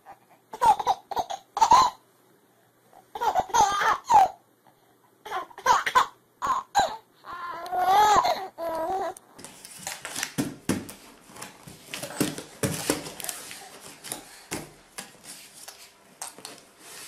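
A baby laughing in short bursts of high-pitched giggles over about the first nine seconds. After that comes a longer stretch of scuffling and rustling noise with a few short baby sounds.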